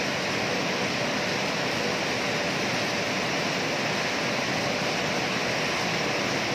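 Cashew-processing machinery running: a steady, even hiss with a faint hum underneath.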